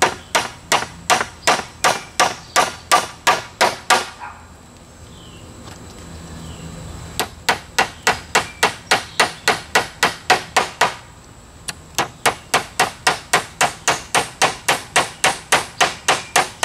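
Claw hammer driving nails by hand into pre-drilled holes in scrap wood: quick, even blows about three a second. The blows come in three runs, with a pause about four seconds in and a shorter one about eleven seconds in.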